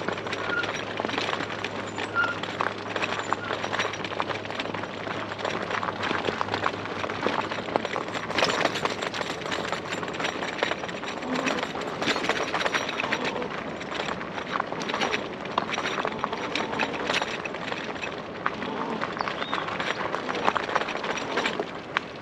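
E-bike tyres crunching and rattling over a rough, rocky trail, with many small knocks and clatters as the bike jolts over the bumps.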